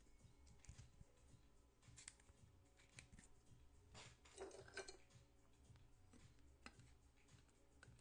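Faint handling of trading cards in rigid plastic holders: scattered soft clicks and rustles, with a short burst of louder rustling about four seconds in.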